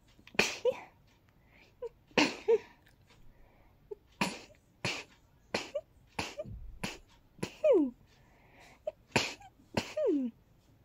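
A person sneezing rapidly, about a dozen sharp sneezes in quick succession, some in pairs. Short breath catches come before several, and a couple end in a falling voiced sound.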